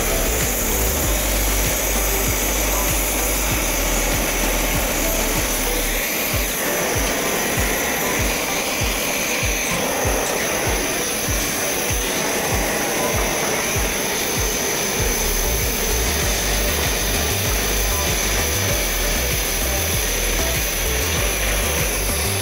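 Gas torch flame hissing steadily as it heats the seam of a brass radiator upper tank to solder it onto the core.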